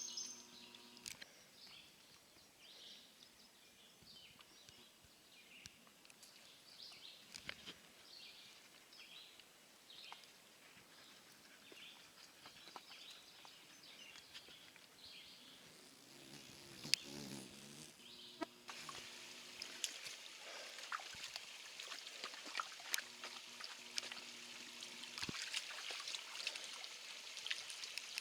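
Faint woodland ambience with scattered short bird calls. About two-thirds of the way in, a steady hiss of running water from a small stream comes up, with occasional light ticks.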